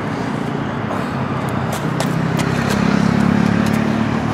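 Steady hum of road traffic, growing louder about two seconds in as a vehicle passes, with a few scattered light clicks.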